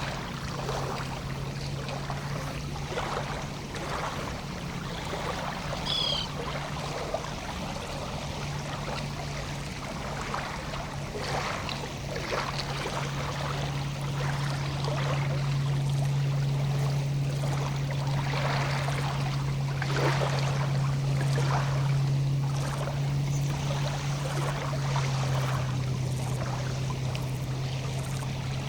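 Lake water lapping and splashing softly in irregular small slaps, over a steady low hum that swells for a while in the middle. A bird gives a short two-note call about six seconds in.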